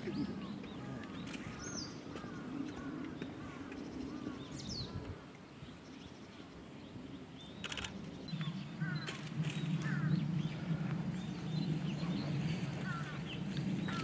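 Small birds chirping in the background, a run of short chirps over the first few seconds, over a steady low rumble that grows louder about halfway through. A few sharp clicks come about halfway through.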